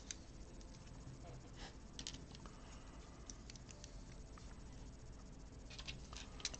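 Faint, scattered clicks of small plastic Lego pieces being handled and pressed together, with a short cluster of clicks near the end.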